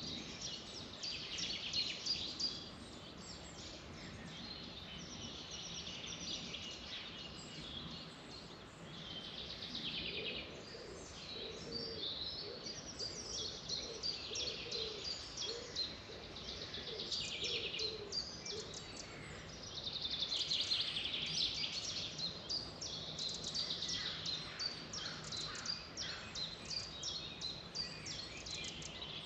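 Several birds singing together, a dense chorus of quick chirps and trills over faint background noise, with a lower repeated call joining about a third of the way in.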